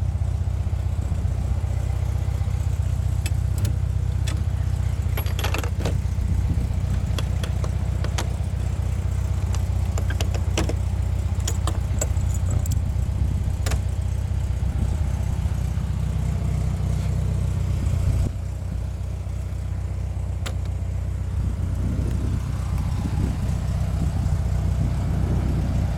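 The kit car's rear-mounted 1600cc air-cooled Volkswagen flat-four idling steadily, a low even hum that drops a little about two-thirds of the way through. Light metallic clicks and clinks come and go in the first half.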